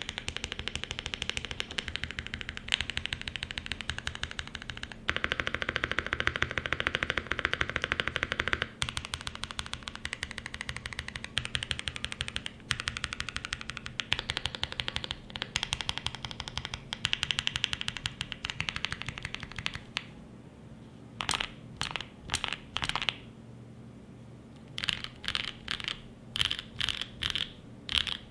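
Mode 80 mechanical keyboard with lubed Holy Boba tactile franken switches, an FR4 plate and GMK keycaps, typed on quickly in a fast run of keystrokes. After about twenty seconds the typing breaks into short separate clusters of key presses with pauses between them.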